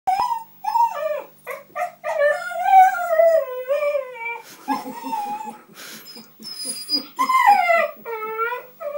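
Husky "talking": a string of long, wavering howl-like calls that slide up and down in pitch, broken in the middle by a couple of seconds of rapid low grumbling pulses, then more rising-and-falling calls near the end.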